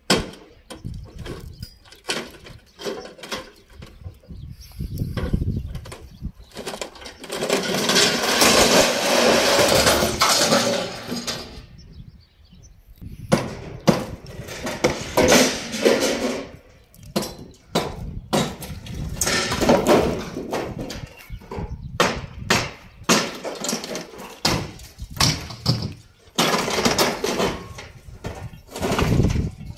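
Wooden formwork being stripped from a concrete slab: many sharp knocks and blows, with boards and props clattering and crashing down in several longer spells.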